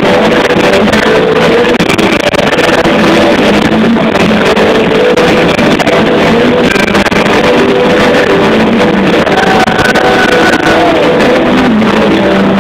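Southern rock band playing live: electric guitars, bass and drums, loud and dense, with a held note bending in pitch about two-thirds of the way through.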